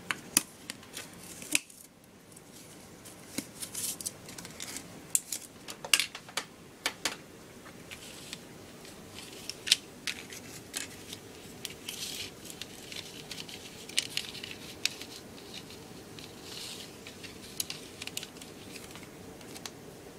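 Plastic coffee cup lid clicking and scraping on a vinyl floor as a cat bats and claws at it: irregular sharp clicks and short scratchy scrapes.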